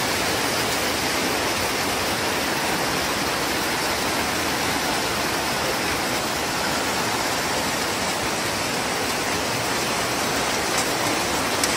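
Heavy rain pouring steadily onto foliage and puddled bare ground, an even, dense hiss.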